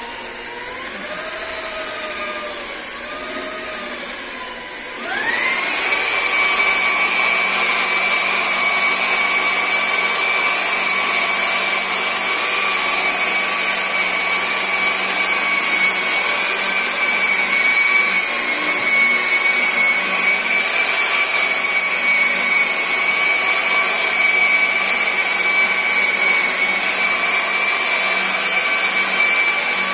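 Electric rotary polisher with a foam pad running against car paint. For about five seconds it turns slower with a wobbling whine, then speeds up to a louder, steady high whine that holds.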